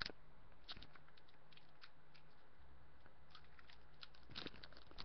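Scattered small crinkles and crackles of a trading-card booster-pack wrapper being handled and worked open, with a louder crackle about four and a half seconds in. The pack is stubborn and hard to open.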